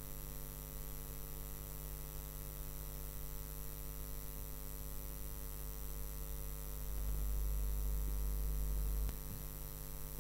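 Steady electrical mains hum from a stage PA system with an open microphone. In the second half a low rumble lasts about two seconds: microphone handling noise as the microphone is passed from one man to another.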